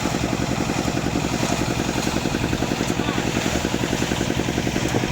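A small engine running steadily, with a rapid, even pulse.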